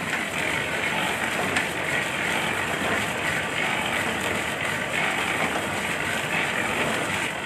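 Mustard oil expeller mill running, its flat drive belts turning: a steady mechanical noise that does not change.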